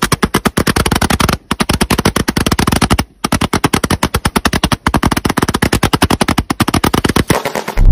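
Multi-shot firework cake firing a rapid, machine-gun-like string of shots, many per second, broken by three brief pauses and tailing off near the end.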